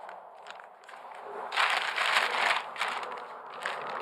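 Plastic courier envelope crinkling and rustling as it is held and slit open with a knife blade; soft at first, then repeated louder bursts of crinkling from about a second and a half in.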